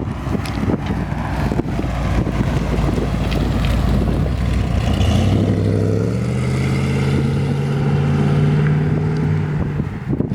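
1969 Chevrolet Corvette's 350 V8 running under way, with wind buffeting the microphone at first. About halfway through, the engine note climbs steadily as the car accelerates, then holds before dropping away near the end.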